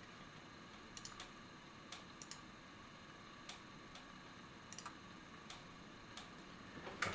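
Scattered single keystrokes on a mechanical keyboard with lubed Cherry MX Black Hyperglide linear switches in an aluminium plate, under GMK keycaps: faint, sparse clacks, some coming in quick pairs.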